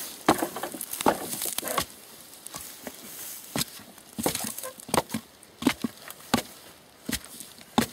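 Long-handled digging tool striking and scraping into grassy soil at the base of a wooden fence post, irregular sharp strikes a few per second with crunching and rustling between them.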